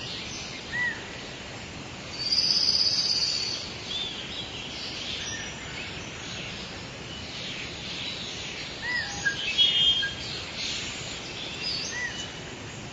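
Birds singing and chirping over a steady background hiss of outdoor ambience: short rising-and-falling chirps recur every few seconds, with a louder trilled song about two seconds in and a burst of calls near the ten-second mark.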